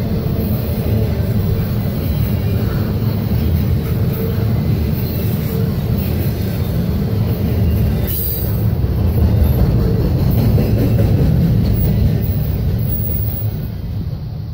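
Well cars of a long Norfolk Southern intermodal freight train rolling past: a steady, loud rumble of steel wheels on rail with some clickety-clack, fading near the end as the last car goes by.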